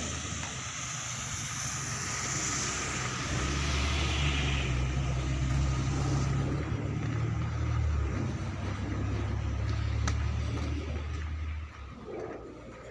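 Street traffic: a motor vehicle passes with a rushing hiss that fades after a few seconds. Under it a low rumble carries on and cuts off suddenly near the end.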